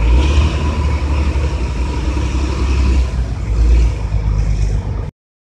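Bus with a modified 'ngorok' racing exhaust running loud, a deep low rumble that swells in at the start. It cuts off abruptly about five seconds in.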